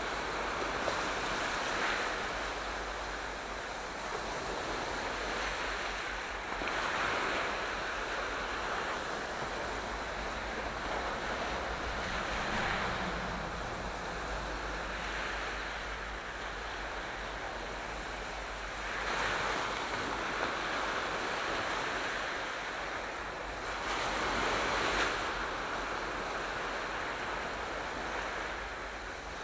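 Sea waves washing onto the shore, a steady hiss of surf that swells with each wave about every five to seven seconds.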